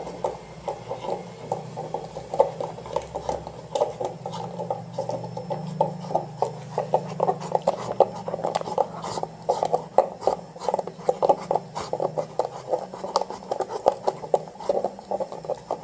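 Rottweiler chewing and gnawing on a plastic drink bottle, working at its cap: a rapid, irregular crackling of plastic crunching under the teeth.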